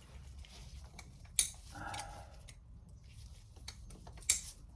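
Two sharp metallic clinks of hand tools against the water meter fittings, about a second and a half in and again near the end, with a brief scrape of metal in between.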